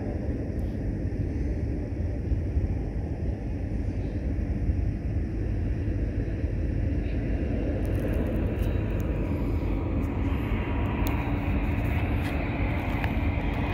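BNSF freight train rolling by, with the steady low drone of its diesel locomotives. From about eight seconds in, a higher hiss grows and scattered sharp clicks join.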